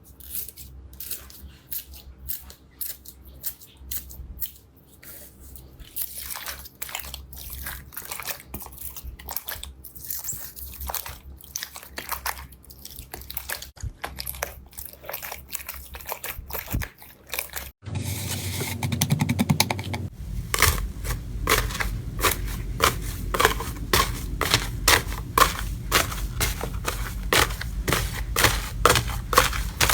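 Slime being squeezed and pressed, giving a dense run of short crackling pops and squishes. About two-thirds of the way through there is a sudden cut to a louder stretch of the same crackling.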